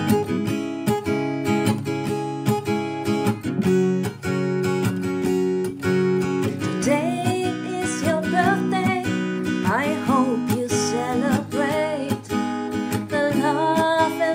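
Acoustic guitar strumming the intro of a song. About seven seconds in, a wordless sung melody with gliding, wavering pitch comes in over the chords.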